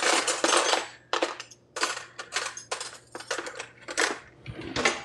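Cutlery clinking and clattering as a fork is picked out: a dozen or so short, sharp clinks, the loudest cluster at the start.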